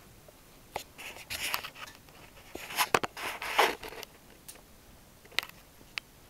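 A flat floor mop's head scraping and rubbing in irregular bursts as a puppy nips and tugs at it, with a few sharp clicks near the end.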